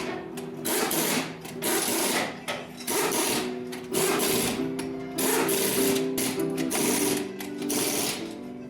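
Short repeated bursts of a rapid mechanical rattle, typical of a power tool in a repair shop, over background music.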